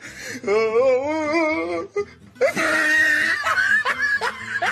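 A person laughing hard: a long wavering laugh, then a loud high laugh that breaks into short repeated gasps about three a second.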